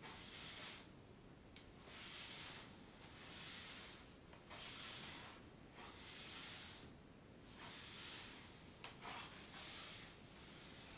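Broom bristles brushing across a hard kitchen floor in repeated sweeping strokes, each a soft brushing hiss, about one every second and a half, with a couple of small sharp taps in between.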